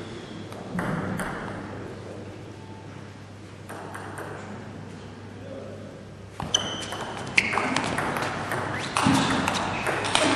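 Table tennis rally: the celluloid ball clicks sharply off the bats and the table in a quick irregular series, starting about six seconds in, with a ringing ping on some hits in a large hall.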